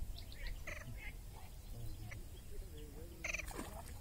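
Faint short animal calls, several brief pulsed calls repeating every second or so over a quiet outdoor background.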